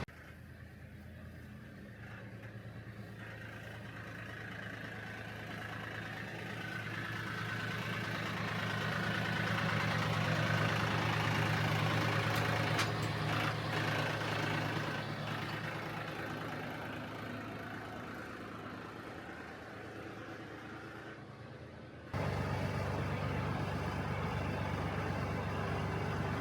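Tractor engine running, growing louder as it comes closer, loudest about halfway through, then fading as it moves off. Near the end it suddenly becomes louder and steady.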